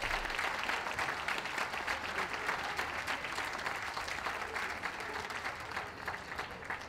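Ringside audience applauding, a dense patter of many hands clapping that gradually thins out toward the end.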